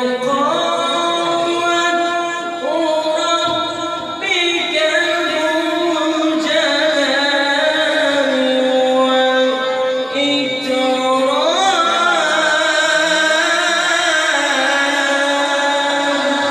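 A man reciting the Quran in the melodic tajweed style. His voice holds long notes and bends them up and down in ornamented glides, with no pause.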